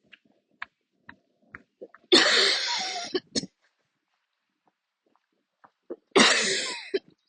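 A woman's harsh, rasping coughs in a coughing attack: two drawn-out coughs about four seconds apart, each starting sharply and tailing off over about a second, with faint short sharp sounds between them.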